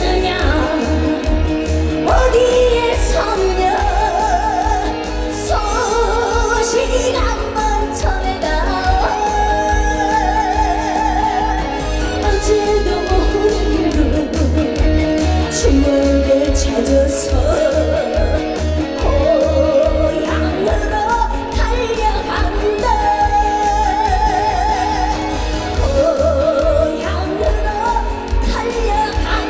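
Trot song performed live: a female singer holding wavering, vibrato-laden notes over a band backing track with a steady bass beat.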